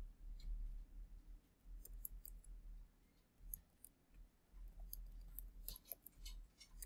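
Typing on a computer keyboard: faint key clicks in short runs with pauses between, busiest near the end, over a low hum.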